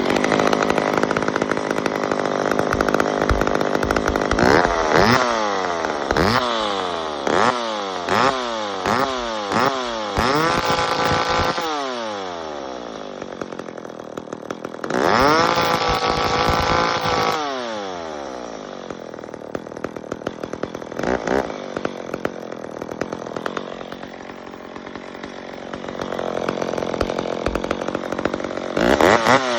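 1976 McCulloch 1010 chainsaw's two-stroke engine running. It is blipped up and down about once a second several times, then revved and held high twice for a second or two, each time dropping back to a lower idle. Quick blips return near the end.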